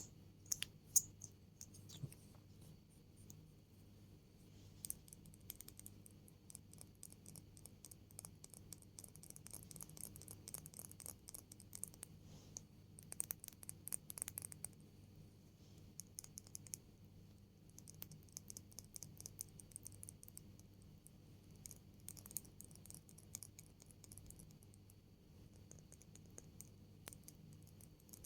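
Quiet, close-miked ASMR tapping and scratching: fine, crisp clicks coming in irregular clusters, with a few sharper taps in the first couple of seconds and the busiest stretch around the middle.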